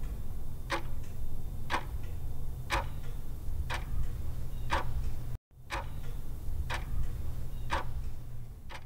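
Sharp ticks about once a second, evenly spaced like a clock's, over a steady low rumble. Both cut out briefly about five and a half seconds in, then resume.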